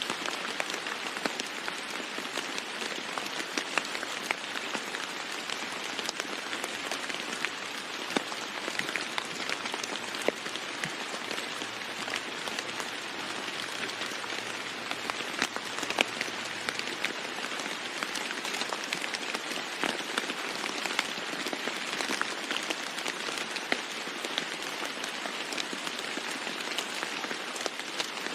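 Steady rain falling on a roof, a constant hiss scattered with sharp ticks of individual drops striking.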